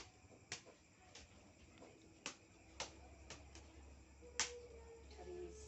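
Finger snapping: about seven sharp snaps at an uneven pace, the loudest a little over four seconds in.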